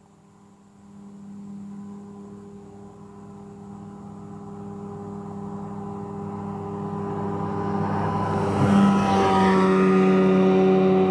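Speedboat engine running at speed as the boat approaches, growing steadily louder. Its pitch dips slightly as it passes close by, about nine seconds in.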